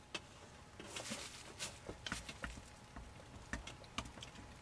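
Faint, irregular clicks and rustles of handling as an inspection camera is picked up and moved about over a circuit board.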